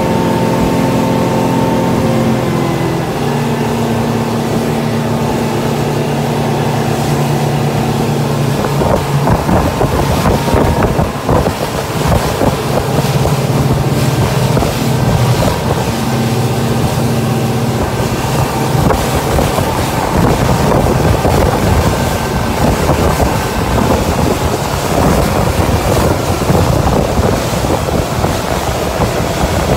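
Motorboat engine running steadily under way, with wind buffeting the microphone and water rushing past the hull; the wind and water noise grows heavier from about nine seconds in and partly covers the engine.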